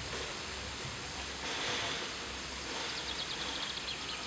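Park fountain spraying and splashing steadily, an even hiss of falling water.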